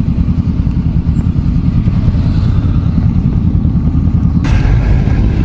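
Motorcycle being ridden, its engine running under a heavy fluttering wind rumble on a helmet-mounted camera. A steady hiss joins suddenly about four and a half seconds in.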